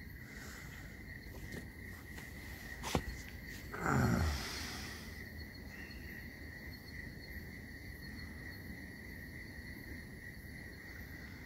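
Crickets trilling steadily, with a sharp click about three seconds in and, a second later, a short loud whoosh that falls in pitch.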